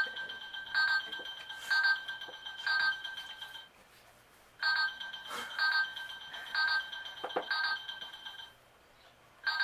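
Electronic beeping from the Don't Lose Your Cool game's heart-rate headband. A steady high tone pulses about once a second, in two phrases of about four pulses with a short pause between them, while the headband calibrates and the players wait.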